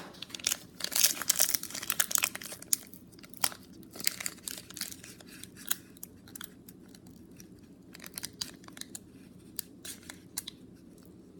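Foil Pokémon booster pack wrapper being crinkled and torn open by hand: quick crackles, thick for the first few seconds, then fewer and fainter.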